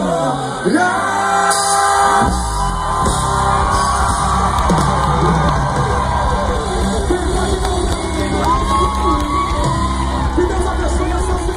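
Live gospel band playing through a large stage sound system, with singing and the crowd yelling and whooping along. The band's bass drops away at the start and comes back in about two seconds in.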